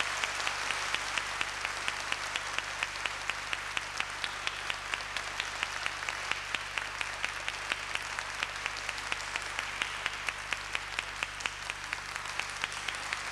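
Audience applauding steadily, with claps from hands close by standing out at about three a second.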